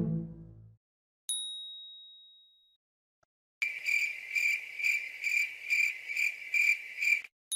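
Cricket chirping sound effect: a high, steady chirp pulsing a little over twice a second for nearly four seconds. It comes after a single bright ding that rings out, and a second identical ding starts at the very end.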